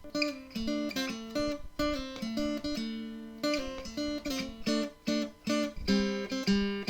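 Intro music: acoustic guitar picking a quick run of notes.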